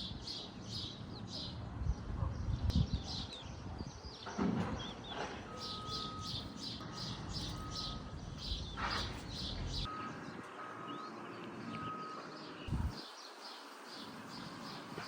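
Small birds chirping in quick repeated series, over a low rumble that fades out about two-thirds of the way through.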